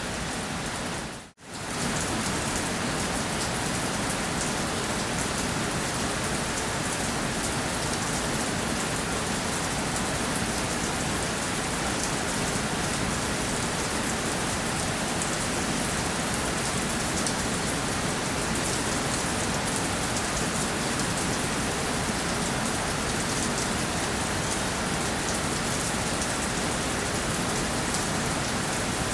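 Steady rainfall: a dense, even hiss with a fine patter of drops. About a second in, the sound briefly cuts almost to silence and then comes straight back.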